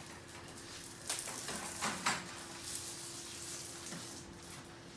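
Handling noise as a wheelchair and an electric patient lift are rolled into position on a wooden floor: rustling and light knocks, busiest about one to two seconds in, over a faint steady hum.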